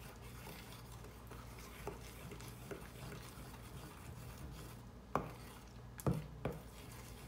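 A spoon stirring thick homemade gesso paste in a small stainless-steel bowl: soft scraping with a few sharp clinks of spoon against bowl, the loudest three in the second half.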